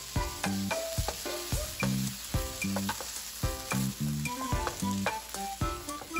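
Green beans and carrots sizzling in melted butter in a skillet while a wooden spoon stirs and scrapes them around the pan.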